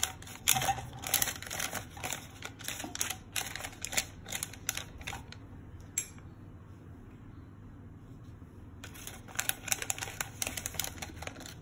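Butter paper crinkling and crackling as fingers press it into a steel vessel, in quick irregular crackles; it goes quiet for about three seconds midway, then starts again.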